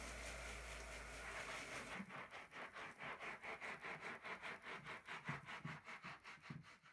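Shower spray pouring steadily onto a wet shag rug; about two seconds in it gives way to a hand scrubbing the soapy pile in quick, even rubbing strokes, about four or five a second.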